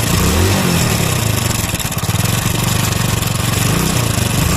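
Hero Splendor Plus's 97cc single-cylinder four-stroke engine running, its pitch rising and falling briefly about half a second in and again near the end. The engine makes a lot of abnormal noise from inside, a fault the mechanic means to cure by rebuilding the engine.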